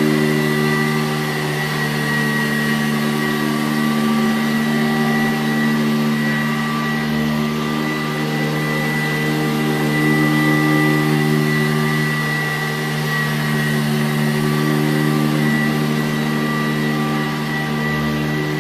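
Sanitaire SC887B-2 commercial upright vacuum cleaner running steadily, its 7-amp motor giving a steady hum with a high whine on top.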